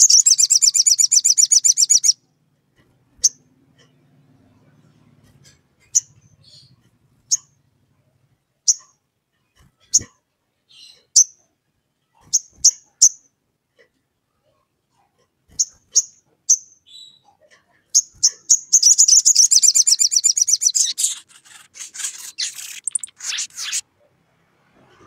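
Male olive-backed sunbird calling a challenge at a rival. A fast, high trill lasts about two seconds, then single sharp chirps come roughly once a second, then a second long trill starts about 19 seconds in and breaks up into scattered chirps.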